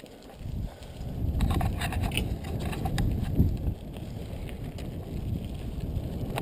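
Bicycle riding over a gravel dirt trail: a steady low rumble of wind on the microphone and tyres on the ground, with scattered small clicks and rattles from the bike and stones. It gets louder about a second in as the speed picks up.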